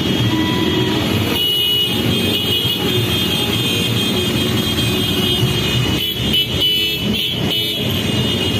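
Many motorcycle engines running together at low speed in a packed rally procession: a loud, steady mass of engine noise.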